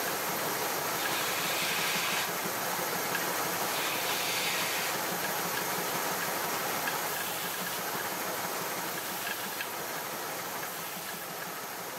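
A stationary woodworking power tool running steadily, with a brighter hiss in a few stretches of about a second during the first half, as wood is pressed against it.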